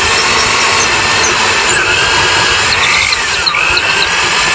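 Electric drill running as it bores a hole through the centre of an insulation board. The sound is loud and steady, with a whine that dips in pitch about three seconds in and rises again.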